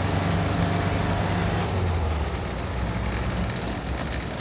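Air-cooled flat-four engine of a VW T2 early-bay campervan running on the move, heard from inside the cabin with road noise. The engine note drops a little about two seconds in.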